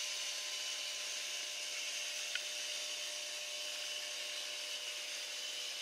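Steady hiss of water being piped into a flood-test tank, with a faint steady hum beneath and a small tick a couple of seconds in.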